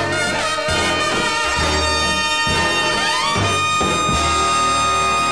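Swing big-band ending of a song: brass (trumpets and trombones) playing the closing bars, with a rising brass glide about three seconds in, then a long held final chord.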